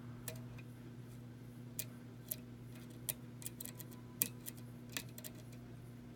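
Small, irregular metallic clicks of a lock pick lifting and setting pins inside a pin-tumbler lock, spaced about half a second to a second apart, over a steady low hum.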